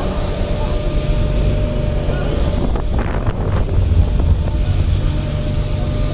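Ferry engines running with a steady low hum, under a rushing of wind on the microphone and storm waves surging against the quay.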